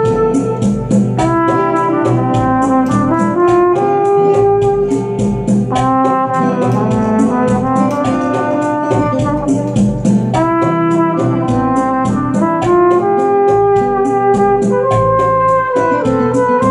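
Trumpet playing a melody of held notes over a backing track, with a steady ticking beat running under it.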